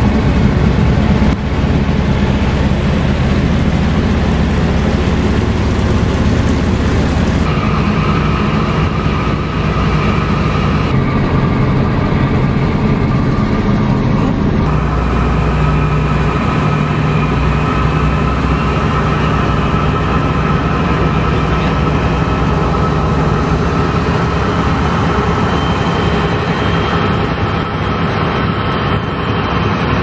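Boat engine running steadily under way, with water and wind noise. The engine note changes abruptly several times, at about one and a half, seven and a half, eleven and fifteen seconds in.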